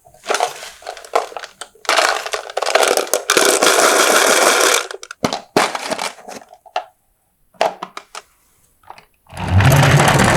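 Marbles rolling and clattering down a wooden marble run: quick clicks, a few seconds of continuous rolling, more scattered clicks, then a loud rattle with a low hum near the end.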